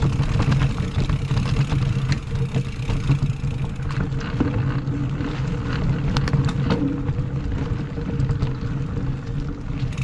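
Mountain bike riding over a rooty dirt singletrack: a steady low drone of tyre and ride noise, with frequent sharp clicks and rattles as the chain and frame jolt over roots.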